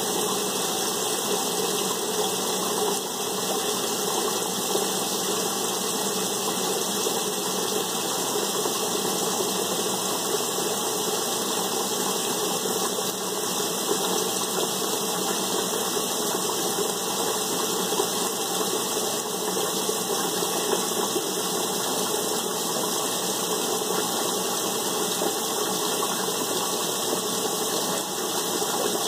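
Window air conditioner running: a steady mechanical hum with fan noise, unchanging throughout.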